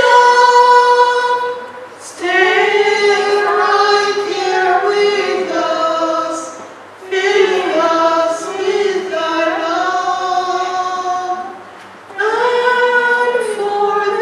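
A woman singing a slow gospel song unaccompanied into a microphone, in long held phrases with short breaks for breath about 2, 7 and 12 seconds in.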